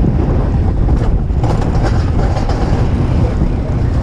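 Alpine coaster sled running fast down its steel tube track: a steady low rumble from its wheels on the rails.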